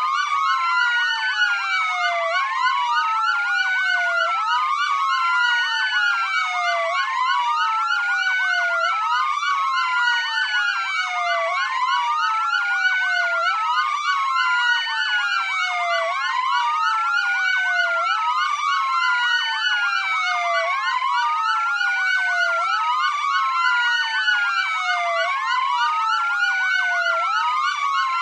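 Several police sirens wailing at once, each rising and falling in pitch about every two seconds, overlapping out of step with one another.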